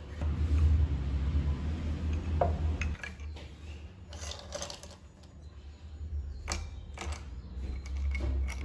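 Liquid poured from a plastic bottle into a glass, followed by a metal spoon clinking against the glass and a ceramic bowl as ice is added to a mojito and stirred. The clinks come singly and in small clusters over the second half.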